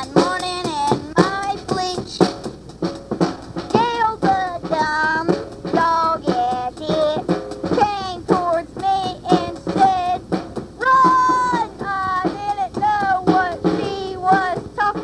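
A song: singing over a drum beat.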